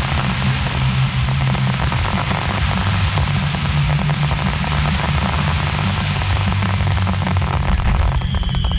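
Fireworks finale barrage: dense, continuous crackling over a steady deep rumble of bursting shells. A falling whistle starts near the end.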